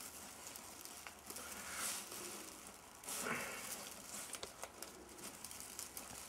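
Soft rustling and crackling of fir branches as hands tuck sprigs into a brushwood wreath and bind them on, with a few light clicks.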